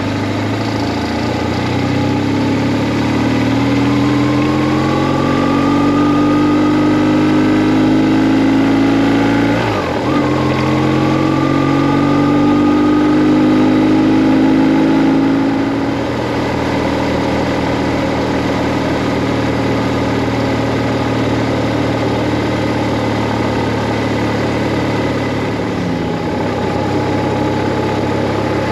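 BMW R1150R's air-cooled boxer twin under way, pulling up through the revs, dropping sharply about ten seconds in as a gear changes, climbing again, then easing off at about sixteen seconds into a steady cruise.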